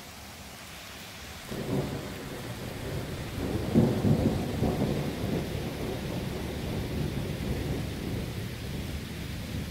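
Thunder rumbling: it breaks in suddenly about a second and a half in, is loudest around four seconds, then rolls on more quietly over a steady hiss of rain.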